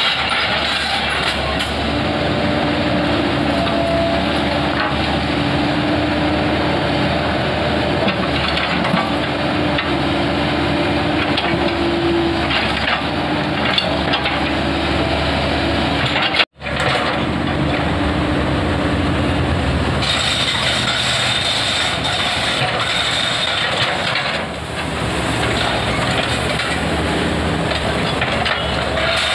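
Komatsu PC130F hydraulic excavator running steadily while working through broken concrete rubble, with scattered knocks and crunches from the bucket. The sound cuts out for an instant a little past halfway.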